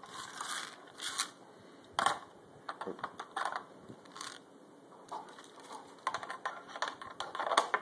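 Irregular clicks and taps of the clear plastic (Lexan) handle and body of a GSI Outdoors hand coffee grinder being handled, as the handle is taken off and fitted into its storage notch.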